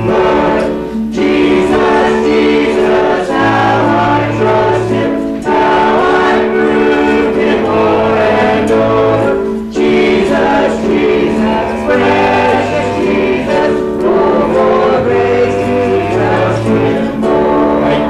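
A church congregation singing a hymn together, many voices in long held notes.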